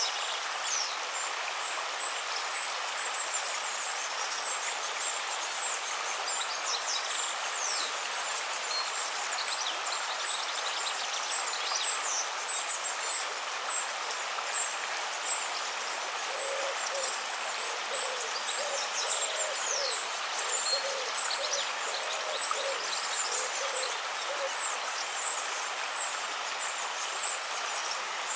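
River water running steadily, with many small birds chirping and whistling high above it. From about the middle, a bird repeats a low call many times in a steady run for several seconds.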